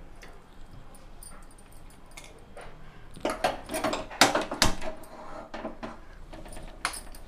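Aluminium pressure cooker being handled: the lid and handle clank and clatter as it is closed up and set on the gas burner, with a burst of sharp metal knocks and some ringing from about three to five and a half seconds in.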